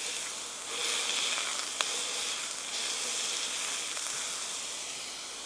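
Beef smash-burger patties sizzling in oil on a hot griddle plate as they are pressed flat, with one sharp click about two seconds in.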